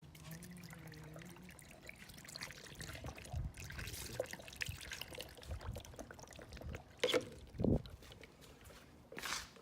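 Water being poured into a car's cooling system through the filler, trickling and gurgling, with a few louder glugs near the end.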